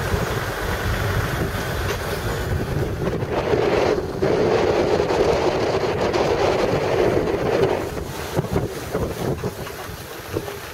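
An open vehicle driving along a rough road: engine and road noise, with wind buffeting the microphone. It grows louder for a few seconds in the middle, then eases off near the end.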